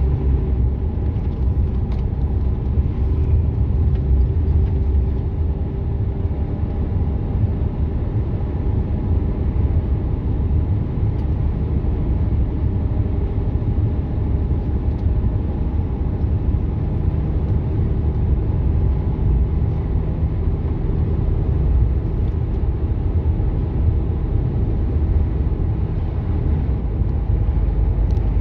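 Truck cab interior while driving at a steady speed: the diesel engine and tyre noise make an even low rumble, with faint steady engine tones above it.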